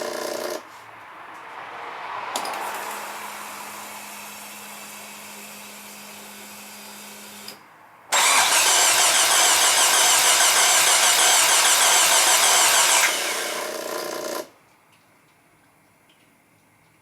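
An engine cranked over on its starter for about five seconds without catching, then cut off: a no-start. Before the cranking there is a steady hum lasting about five seconds.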